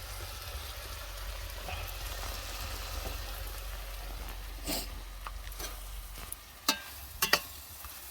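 Food frying in a pan, a steady sizzle as it is stirred, with a few sharp clicks of the utensil against the pan in the second half.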